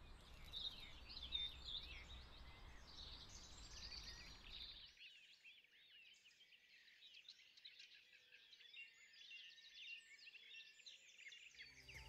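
Faint chirping and song of small garden birds, many short high calls. A low background noise under it cuts off abruptly about five seconds in, leaving only the chirps.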